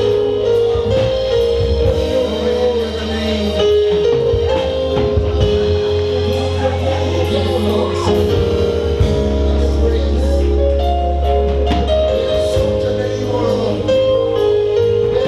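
Live gospel worship band playing: a steady bass and sustained keyboard chords under a drum beat, with singing.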